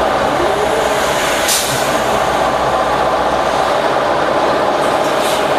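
2011 New Flyer Xcelsior XD40 bus with its Cummins ISL9 diesel engine running steadily under way. Two brief hisses come through, one about a second and a half in and one near the end.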